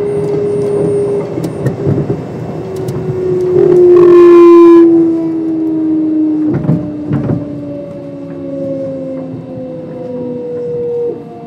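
Kintetsu 5200 series train's Mitsubishi GTO-VVVF inverter and traction motors whining, the pitch slowly falling as the train slows on approach to a station. A loud pitched tone sounds for about a second around four seconds in, and two knocks from the wheels follow a couple of seconds later.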